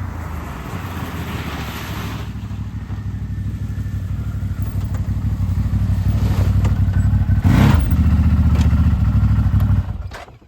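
Four-wheeler (ATV) engine running, growing louder over the first seven seconds, then cutting off about ten seconds in.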